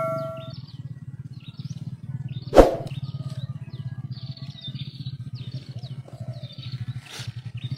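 Small birds chirping in short scattered calls over a steady low pulsing hum, with one sharp click or snap about two and a half seconds in.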